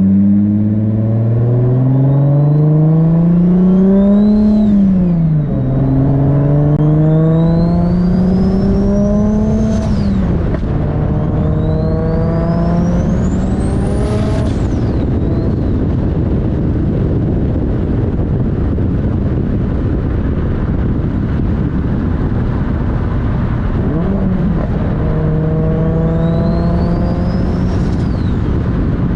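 Turbocharged RB25 inline-six under hard acceleration, rising in pitch through four pulls. On each pull the GT3076R turbo spools with a climbing whistle that drops away when the pull ends. In the middle stretch the engine holds a steady note.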